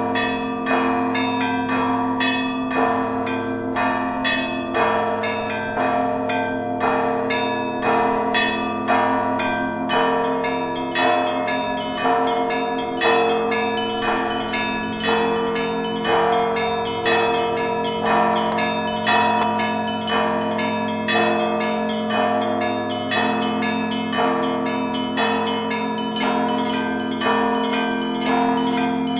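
Russian Orthodox church bells ringing a zvon: smaller bells struck in a quick, regularly repeating pattern, about once a second, over the long hum of the lower bells.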